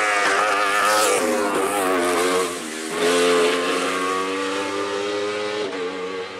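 Sport-prototype race car engine revving hard up a hill-climb course, its pitch falling and rising through gear changes, with a brief dip about two and a half seconds in.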